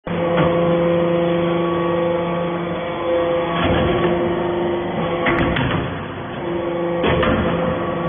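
Hydraulic aluminum-chip briquetting press running: a steady hum from its hydraulic power unit, with sharp knocks and shifts in the hum about four times as the ram cycles.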